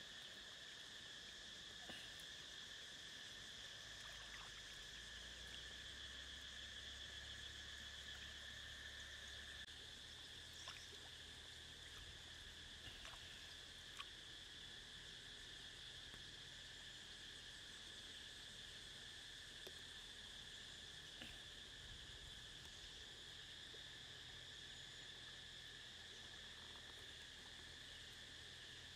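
Faint, steady chirring of insects at a high, unchanging pitch, with a few soft clicks scattered through.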